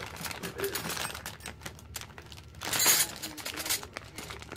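Clear plastic bags crinkling as they are handled, with the chrome-steel wrenches and sockets inside clinking against each other; a louder rustle about three seconds in.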